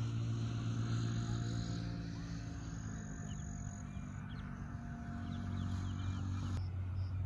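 A steady low hum, with a few faint bird chirps around the middle.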